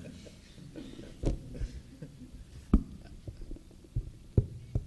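A few soft thumps and knocks, about five at irregular intervals, over quiet room tone.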